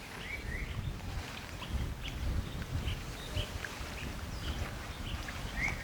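Outdoor lakeside ambience: a steady low rumble of wind on the microphone, with a few short bird chirps, a pair about half a second in and another pair near the end.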